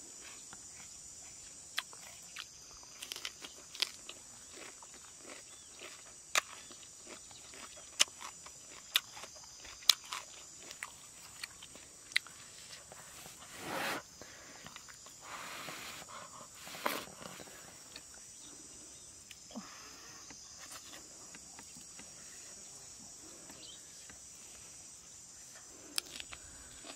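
Eating grilled fish and lettuce by hand: crisp crunching and clicks, thickest in the first half, with a couple of longer rustling scrapes near the middle as the fish is pulled apart. A steady high drone of insects runs underneath.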